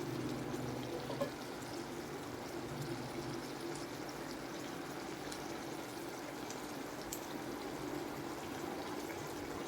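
Food cooking in a pan: a steady bubbling hiss with scattered small pops over a low steady hum, and a single sharp knock about a second in.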